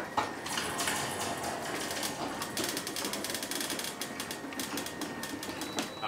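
Ryobi One+ battery garage door opener running and moving the garage door: a steady, fast mechanical rattle with a faint steady whine. It is powered by a small 1.5 amp-hour battery, and the motor is struggling a little.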